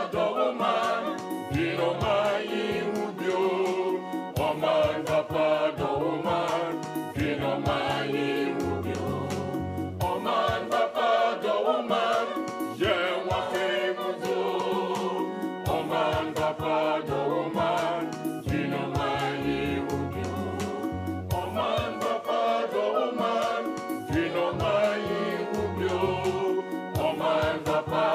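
Background music: a choir singing over a bass line with a steady beat, in a gospel style.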